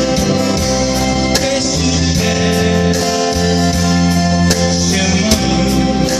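Music with guitar over sustained accompaniment and a steady beat, without clear singing.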